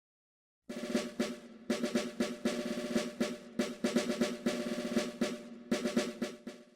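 Silence, then, under a second in, music starts: a fast, driving drum beat with snare rolls over held tones.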